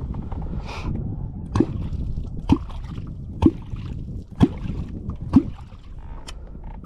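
Catfish clonk (kuttyogató) struck against the water surface five times, about once a second, each stroke giving a short, low-pitched plop. The rhythmic clonking is the call used to draw wels catfish up to the bait.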